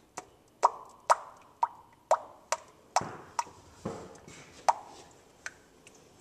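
Motor oil glugging out of a bottle into a funnel in the engine's oil filler opening: a run of sharp glugs, about two a second, that grow sparser and fainter toward the end.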